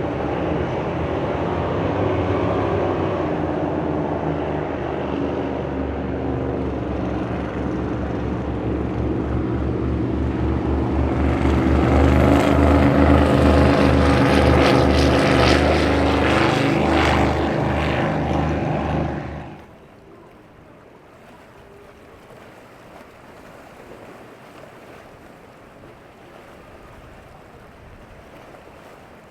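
Boat outboard motor running at speed as the boat passes, growing louder and brighter near the middle, then cutting off abruptly about two-thirds of the way in. After that, only a quieter wash of waves and wind.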